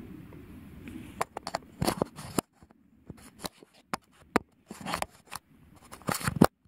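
Handling noise from a hand on the camera: rubbing, then a run of irregular clicks and scrapes, loudest near the end.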